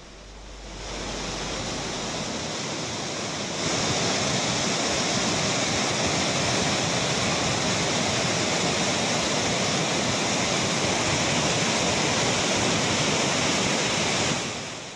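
Steady rush of heavy floodwater churning and surging. It fades in over the first second, gets louder about three and a half seconds in, and fades out near the end.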